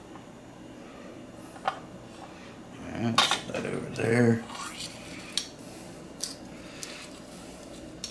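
Small metallic clinks and taps of a soldering iron and solder wire being worked over an open tin of soldering paste, with a louder clatter lasting about a second, three to four seconds in.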